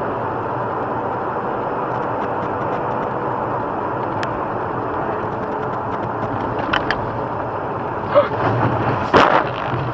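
Steady road and engine noise of a car driving, as heard by its dashcam inside the cabin. Near the end there are a few louder sharp sounds, the loudest a single thump about nine seconds in.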